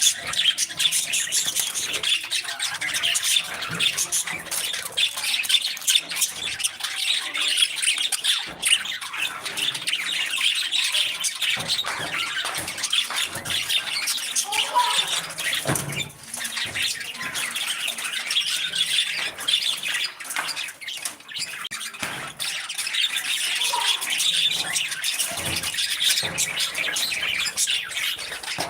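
A flock of budgerigars chattering and chirping continuously, many short warbling calls overlapping.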